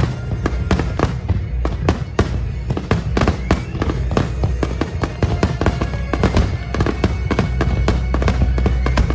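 Fireworks going off in a rapid, continuous barrage, many sharp bangs and crackles a second over a deep rumble, with music playing underneath.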